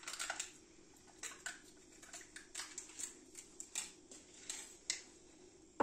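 Faint, irregular clicks and light scrapes from a jar of chocolate hazelnut spread being opened and handled.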